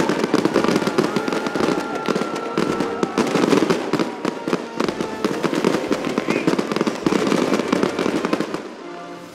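Fireworks and stage pyrotechnics crackling and popping in a rapid, dense barrage, easing off near the end.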